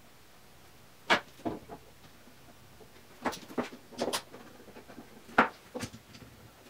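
Wood boards and a bar clamp being handled and set on a workbench: a run of irregular sharp knocks and clicks, the loudest a little over five seconds in.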